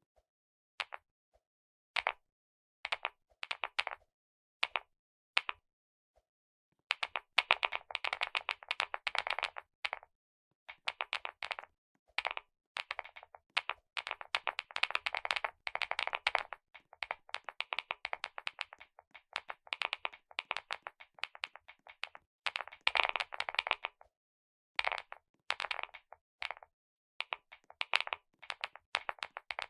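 Computer keyboard being typed on, its keys clicking sharply: a few short bursts of keystrokes at first, then fast continuous typing from about seven seconds in, with brief pauses.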